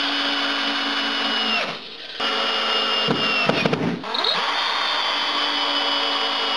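Power drill driving wood screws down through a plywood deck into a wooden divider board. The motor runs steadily, winds down and stops about two seconds in, runs unevenly for about a second as it starts again, then runs steadily.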